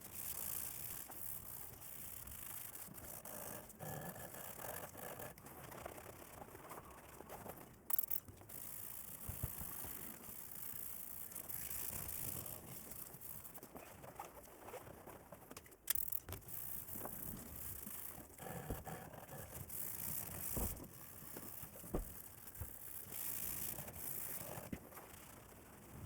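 Irregular scraping and rubbing noises coming and going, with two sharp knocks about eight and sixteen seconds in.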